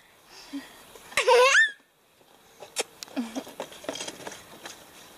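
A toddler girl's high-pitched laughing squeal, under a second long, a little over a second in, its pitch rising at the end. Soft clicks and rustles follow.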